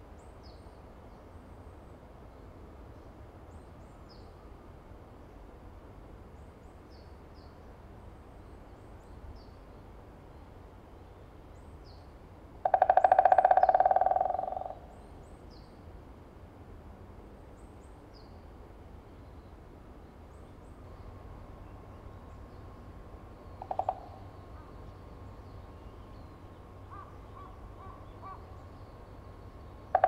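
White-backed woodpecker drumming: one loud, rapid roll of about two seconds about halfway through, tailing off at its end, and a brief short burst later on. The drumming is its advertising signal to attract a female. Faint high chirps recur throughout.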